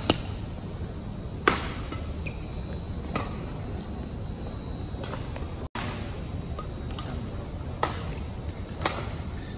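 Badminton rackets striking a shuttlecock: sharp cracks at irregular intervals over a steady low hum of hall noise, the loudest about one and a half seconds in.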